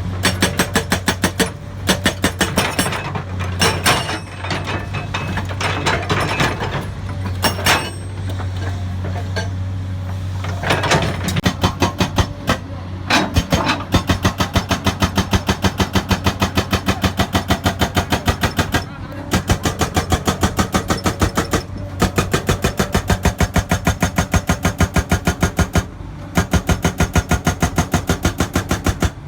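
Hydraulic breaker hammer on a Komatsu excavator pounding rock with rapid, evenly spaced blows, several a second, in runs of a few seconds broken by short pauses, over the steady hum of the excavator's engine.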